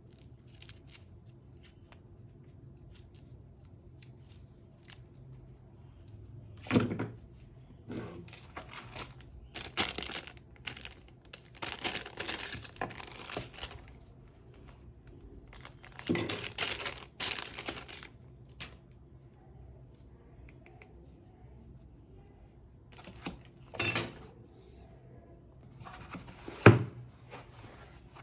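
Packaging being handled during an unboxing: irregular rustling and tearing of wrapping, broken by a few sharp knocks, the loudest near the end.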